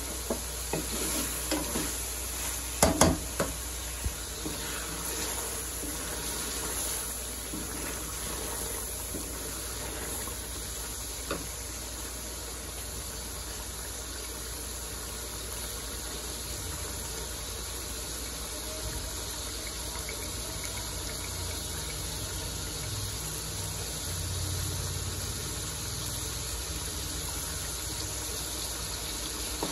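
Chicken and masala gravy sizzling steadily in an aluminium karahi. A wooden spatula knocks and scrapes against the pan a few times in the first few seconds, and once more about eleven seconds in.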